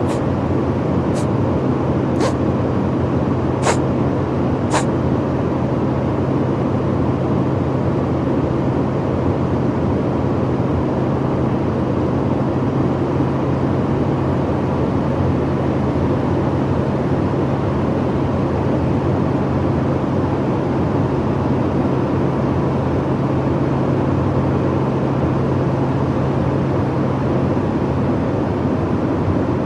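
Steady drone of an airliner cabin, with a sick man sniffling four times, about a second apart, near the start.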